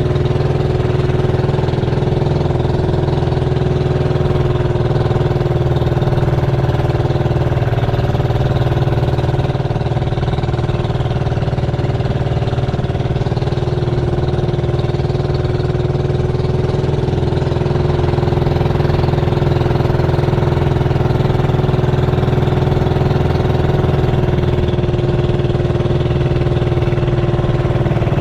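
Small fishing boat's engine running steadily, a constant mid-pitched drone that eases slightly about ten seconds in and picks up again a few seconds later.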